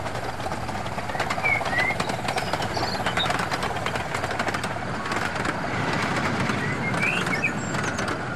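Gauge 0 model train rolling past with a rapid run of fine clicks from its wheels on the track, and a few short bird chirps over it.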